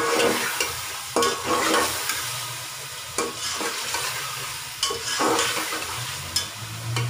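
Chicken pieces sizzling as they fry in oil in an aluminium pot, stirred with a metal spatula that scrapes and clinks against the pot several times, each stroke ringing briefly.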